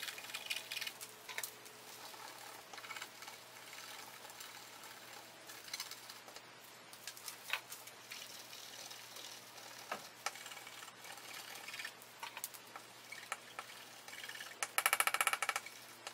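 Faint scratching and small clicks of hand work on a printed circuit board being cleaned up where capacitors were desoldered, with a short, louder rasping scrape near the end.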